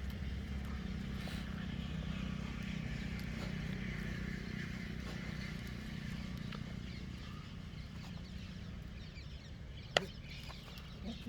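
Farmyard ambience: chickens clucking faintly over a steady low rumble, with one sharp click about ten seconds in.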